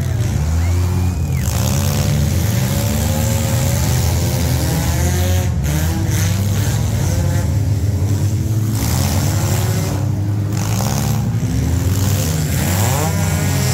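Several stock compact demolition-derby cars' engines running and revving together, their overlapping notes rising and falling as the cars push and ram one another.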